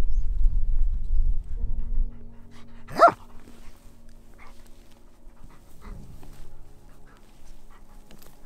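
A dog barks once, a single short bark about three seconds in. A low rumble fills the first two seconds.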